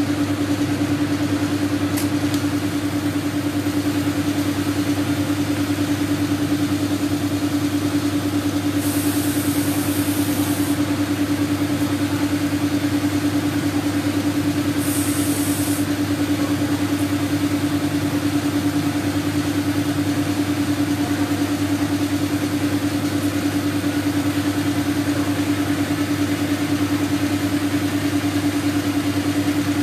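Air compressor running with a steady, even hum, with two short high hisses partway through.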